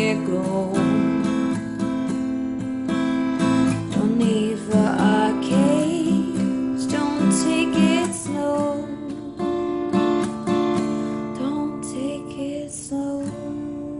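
Acoustic guitar strumming chords in a song's closing bars, the sound thinning and fading toward the end.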